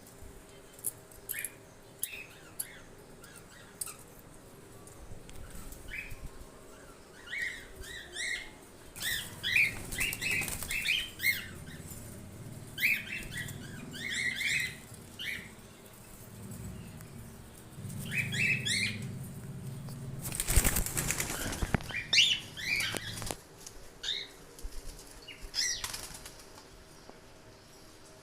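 Cockatiels giving short, repeated chirping calls and flapping their wings, with a loud burst of flapping about twenty seconds in and a few sharp clicks in the first seconds.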